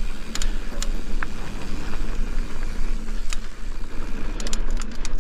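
Mountain bike on the move: a steady low rumble of riding and wind noise on the microphone with a few scattered clicks. Near the end comes a fast, even run of ticks from the rear hub's freewheel as the bike coasts.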